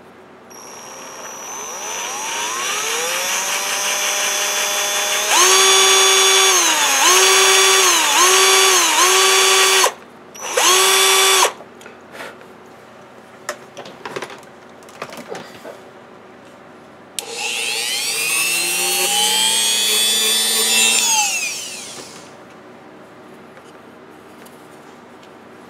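Cordless drill with a small twist bit drilling into a printed circuit board. The motor whine climbs slowly at first, then runs at full speed, its pitch dipping several times as the bit bites. It stops, gives one short burst, and after a pause with a few light clicks runs again with a wavering pitch before winding down.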